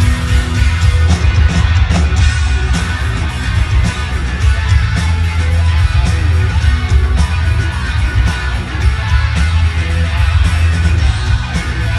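Rock band playing live, loud and dense: electric guitars over steady drum hits and heavy bass.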